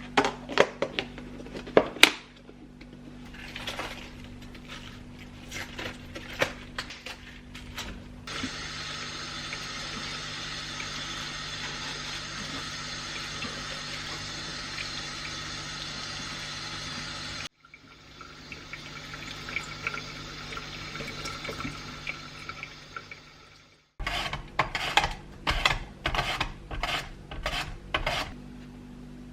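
Kitchen sounds: dishes and utensils clinking, then a tap running steadily for about nine seconds and stopping abruptly, a few more seconds of running water, and more clinking of dishes near the end.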